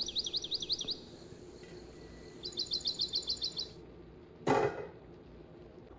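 A bird chirping in two quick trilled phrases of evenly repeated high notes, about ten notes each. About four and a half seconds in comes a brief, louder rush of noise, over a low steady background hum.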